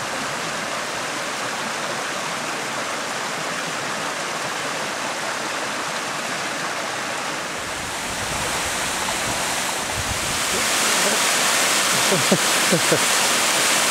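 Steady rushing water of a waterfall and stream. About ten seconds in it grows louder and hissier, and a few short sounds sit on top near the end.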